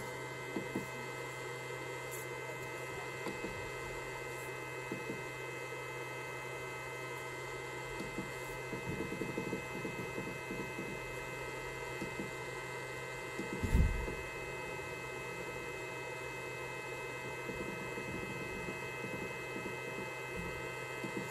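Steady electrical hum with several fixed pitches that neither rise nor fall, broken by a few light clicks and one dull thump about fourteen seconds in.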